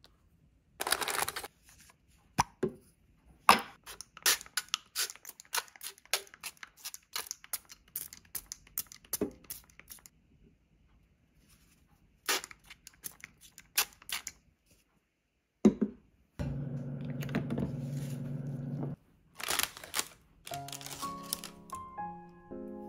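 Crinkling and clicking as the parchment-lined air fryer basket with the toast is handled, then an air fryer running with a steady hum for a couple of seconds that cuts off suddenly. Music with a plucked melody begins near the end.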